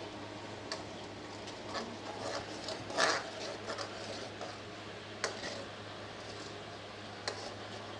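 Metal spoon stirring masala paste in a metal kadai, clinking and scraping against the pan a handful of times, the loudest about three seconds in, over a steady low hum.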